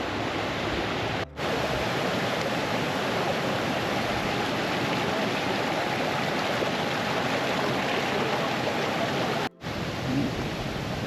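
Rain-swollen stream rushing steadily, an even wash of water noise. It drops out abruptly twice, briefly, about a second in and near the end.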